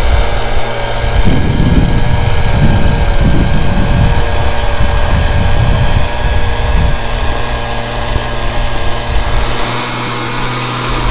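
Handheld gas leaf blower running steadily at a constant pitch, blowing debris out of roof gutters. A low, gusty rumble of wind on the microphone comes in from about one to seven seconds in.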